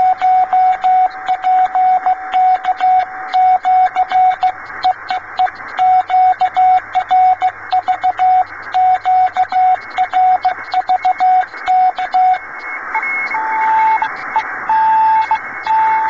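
A Morse code (CW) signal received on a shortwave amateur transceiver in the 15-metre band: a single steady tone keyed on and off in dots and dashes over hiss from the receiver's narrow filter. About twelve seconds in, that keying stops and a higher-pitched Morse tone takes over.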